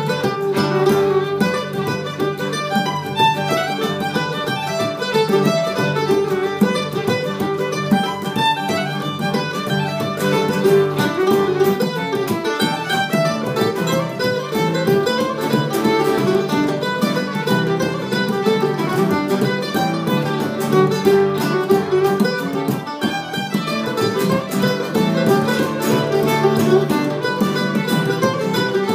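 Irish band playing an instrumental tune live: fiddle carrying a quick melody over strummed acoustic guitar and another plucked string instrument, with bodhrán.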